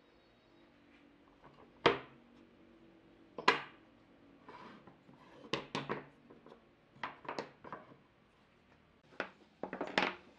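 Wooden parts being set down and shifted on a wooden workbench: a series of sharp wood-on-wood knocks and clatters, the two loudest about two and three and a half seconds in, then smaller clusters of knocks as the curved pieces are laid out.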